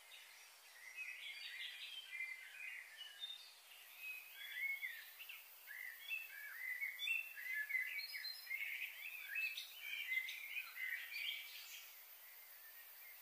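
Several small birds chirping and twittering together in a busy chorus of short, quick calls, dying away near the end.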